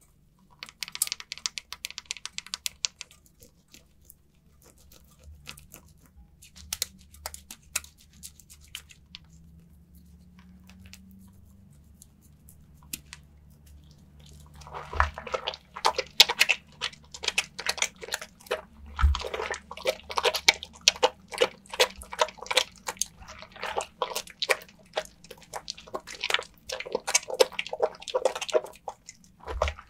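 Wet bar of lavender soap being lathered, with crackling, squishy lather sounds. There are quick clicks at the start, a quieter stretch, then from about halfway on a dense run of crackly squelches in bursts.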